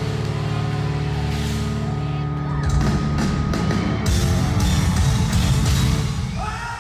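Rock band playing live: a held, sustained chord, then from about two and a half seconds in a run of loud drum and cymbal hits, dying away at the very end.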